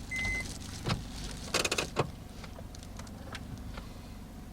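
Car's high electronic beep sounds once at the start, the last of a series of evenly spaced warning beeps. A few sharp clicks and a short rustling clatter follow about a second and a half in, over a low steady hum.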